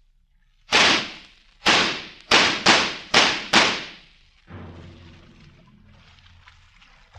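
Six gunshots from a radio-drama sound effect, in quick succession: one, then five more closer together over about three seconds, each cracking sharply and dying away. A low steady hum follows.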